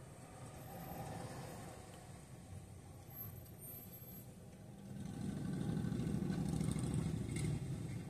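Low, steady vehicle rumble heard from inside a car's cabin, swelling louder about five seconds in and easing off near the end.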